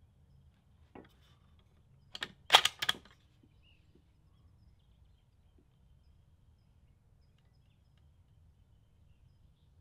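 A few sharp mechanical clicks and clacks from handling a bolt-action rifle at the bench: one faint click about a second in, then a quick cluster of louder clicks about two to three seconds in.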